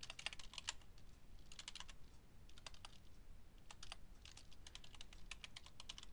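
Computer keyboard typing: short runs of quick keystrokes with brief pauses between them, faint.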